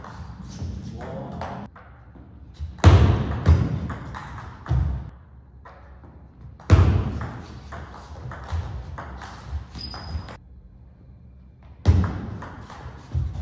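Table tennis ball struck back and forth: sharp clicks off rubber paddles and bounces on the table in quick series, coming in three rallies with quieter gaps between, with low thumps from footwork on the court floor.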